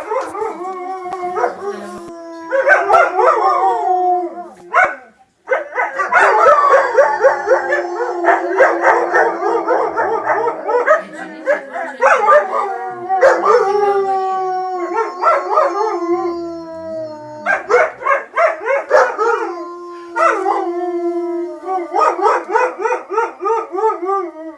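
Several Czechoslovakian wolfdogs howling together in chorus, long held howls at different pitches overlapping one another, with a short pause about five seconds in.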